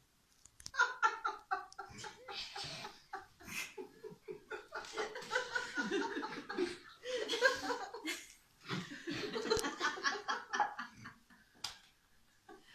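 Hard laughter in long fits, pulsing rapidly and broken by short pauses for breath, lasting about ten seconds.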